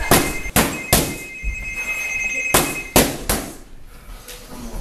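Boxing gloves landing punches in two quick flurries of three sharp smacks, over a steady two-pitch electronic ringing tone that cuts off about two and a half seconds in.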